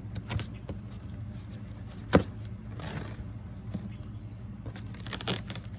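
A duct-taped cardboard package being pulled and picked at to open it: scattered clicks and scrapes, a sharp snap about two seconds in and a brief rip a second later, over a steady low hum.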